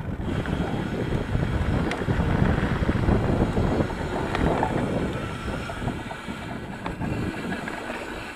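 Wind buffeting the action camera's microphone while a mountain bike rolls along a dirt singletrack, with a few sharp clicks and rattles from the bike and trail. The noise is loudest about two to three seconds in and eases off toward the end.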